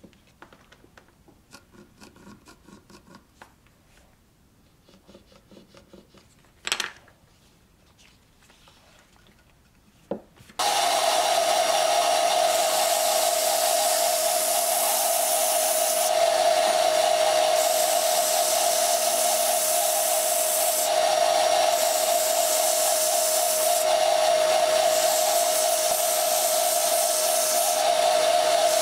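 Quiet handling and rubbing sounds with two sharp clicks. About ten seconds in, a narrow benchtop belt sander starts abruptly and runs with a steady whine. A wooden hammer handle is pressed against the belt in passes, and the gritty sanding hiss swells and drops every few seconds.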